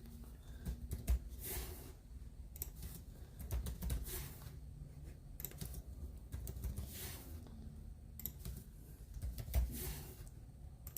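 Irregular clicks and taps of typing on a keyboard, with a few brief rustles in between.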